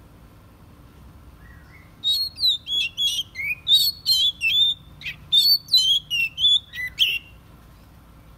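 Oriental magpie-robin singing: a quick run of about a dozen clear, varied whistled notes with sliding pitch, starting about two seconds in and lasting about five seconds.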